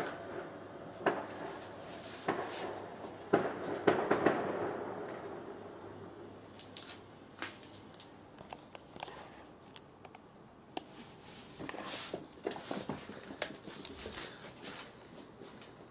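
Two cats scuffling over a comforter: scattered knocks, thumps and clicks with fabric rustling, loudest about three to five seconds in and quieter after.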